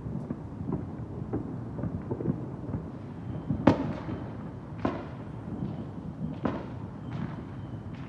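Fireworks going off in a dense barrage: a constant rumble of dull booms, with three sharper, louder bangs, the loudest about a third of the way in.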